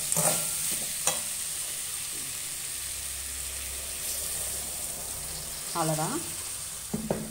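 Diced vegetables sizzling in a hot aluminium kadai, with a metal ladle clicking and scraping against the pan a couple of times early on as they are stirred. Water is then poured into the pan over the ladle, so the vegetables can cook through.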